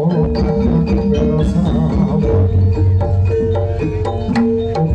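Javanese jaranan gamelan accompaniment playing: kendang hand drums beating a quick pattern with struck metallophone keys and held pitched tones underneath.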